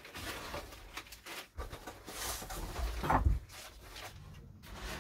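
Things being handled and set onto a wooden shelf: a few knocks and a short rustle of packaging, the loudest knock about three seconds in.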